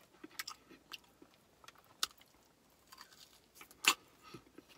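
Crunchy fried chicken breading being bitten and chewed close to the microphone, with scattered sharp crunches, the loudest about four seconds in.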